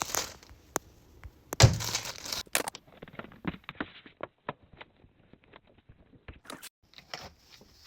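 Handling noises: crinkling and tearing, with a sharp knock about one and a half seconds in, then a run of small clicks and knocks.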